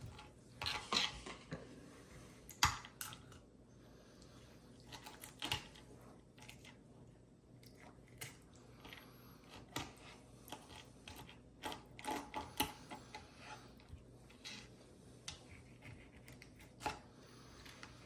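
Knife tapping and scraping on a cutting board as dove breast meat is cut off the bone: scattered, irregular light clicks, with a sharper knock about two and a half seconds in.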